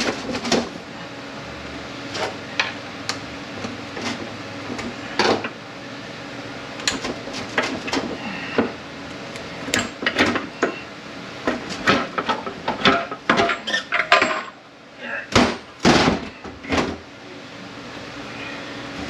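Irregular metal clinks and knocks of steel transmission parts being handled as the case of a Honda BOYA automatic transmission is worked loose and lifted off, with a few louder knocks near the end.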